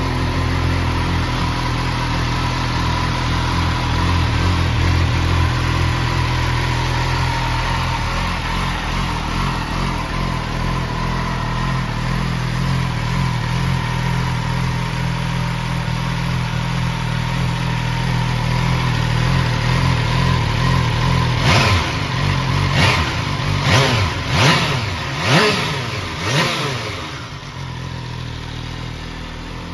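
2013 MV Agusta Brutale 675's three-cylinder engine idling steadily after start-up, then revved in about six quick throttle blips near the end, each rising and falling in pitch.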